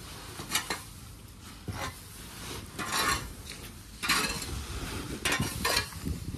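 Dry chopped wheat straw (turi) rustling in hissy swishes, about one every second. It is being raked with a pitchfork and shaken into plastic sacks, and the tines scrape through the heap.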